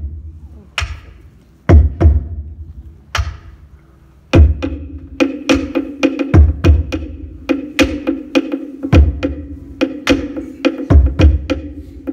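Wooden slit drum struck with a stick: a few spaced knocks, then from about four seconds in a fast, steady rhythm, with a deep thump about every two seconds and a sustained guitar chord underneath.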